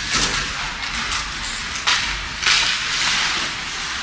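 Ice hockey play: sharp cracks of sticks and puck striking, several times, with hissing scrapes of skates on the ice.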